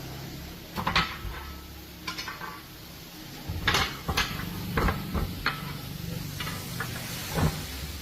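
Metal parts or tools clinking and clanking, about seven separate knocks at uneven intervals, over a steady low hum.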